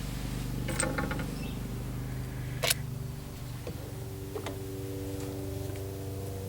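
Light clicking and rattling of metal parts being handled about a second in, then one sharp metallic clack near the middle, over a steady low hum.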